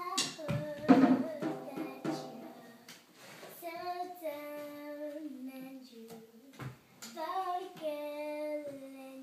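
A young girl singing without accompaniment, holding long, drawn-out notes in two phrases through the second half. A few sharp knocks sound in the first two seconds.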